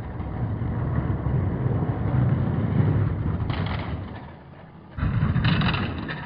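Plastic wheels of toy monster trucks rolling and rumbling down a plastic race track. The rumble dies away about four seconds in, and a second burst of rolling noise starts abruptly about a second later.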